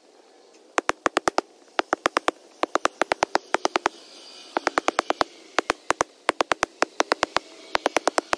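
Hand tamper packing the base of a disc golf tee pad, about one stroke a second, each stroke heard as a quick burst of sharp clicks.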